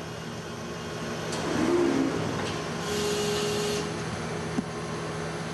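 Factory machinery hum from a pneumatic press fixture, with a short hiss of compressed air about three seconds in and a small click a little later.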